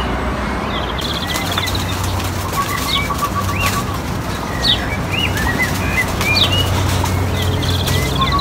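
Pigeons flapping their wings around the loft, with short chirps from birds repeating throughout.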